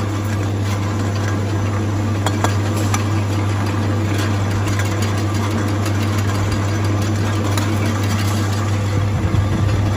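Electric can seaming machine running steadily with a low motor hum, with a few sharp metallic clicks about two to three seconds in.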